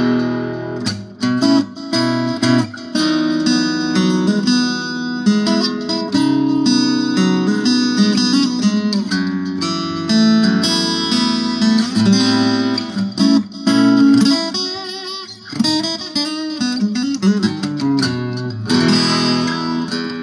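1976 Yamaha FG-251 steel-string acoustic guitar played through its Guyatone GP-1 passive pickup into a small amp with a touch of reverb and delay: fingerpicked notes and chords with some strummed passages.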